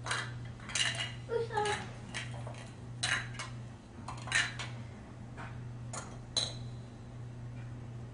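Small hard parts and screws from a disassembled toy truck clinking and clattering as they are handled and stacked: about eight irregular sharp clicks, a few with a short metallic ring.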